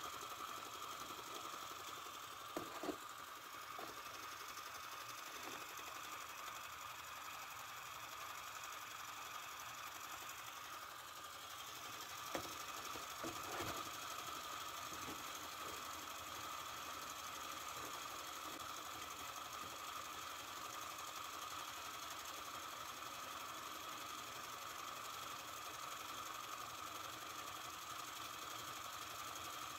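Robert Fulton Line toy vertical oscillating steam engine, fired by a can of Sterno, running steadily with a faint light mechanical clatter. A few sharp clicks come about three seconds in and again around twelve to fourteen seconds in.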